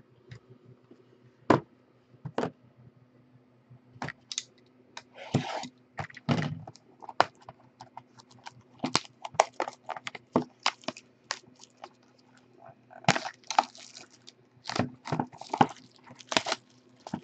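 Foil-wrapped trading card packs handled by hand: scattered crinkles, clicks and taps, coming thicker in the last few seconds, over a faint steady hum.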